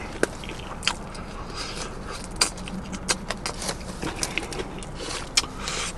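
Close-miked chewing of crispy fried chicken: scattered small crunches and wet mouth clicks over a low steady background.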